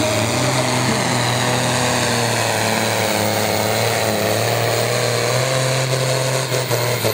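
International 1066 pulling tractor's diesel engine running flat out under full load as it drags the weight sled, a steady drone with slight wavering in pitch. A few brief dips and clicks come near the end.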